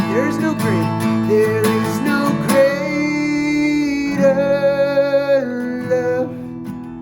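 Worship song with acoustic guitar and long held sung notes, the music tapering off near the end.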